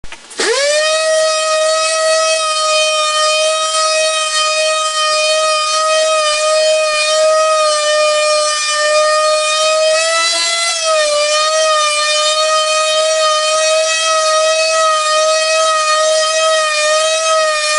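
Electric sanding machine switched on, its motor whining up to speed within about half a second, then running with a steady high whine while sanding a wooden table top. The pitch wavers slightly, rising briefly and dipping about ten seconds in as the load on the sander changes.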